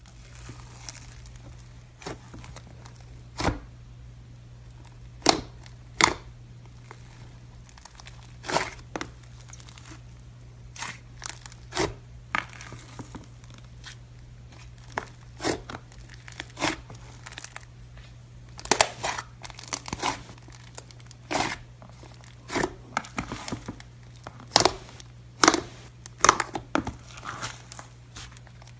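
Slime being squeezed and stretched by hand, giving many short, sharp pops and crackles at irregular intervals over a steady low hum.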